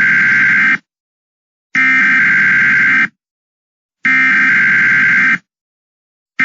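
Emergency Alert System SAME header: loud buzzy digital data bursts about a second long, three of them a second apart, with a short fourth burst starting at the very end.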